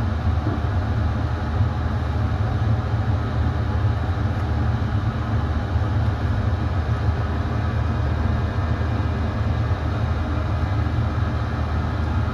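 Diesel air heater running steadily, its burner and blower fan making an even low hum under a broad rushing noise.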